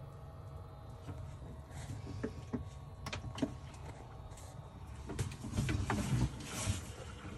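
Scattered clicks and knocks of things being handled, with a louder rushing stretch about five seconds in, over a steady low hum.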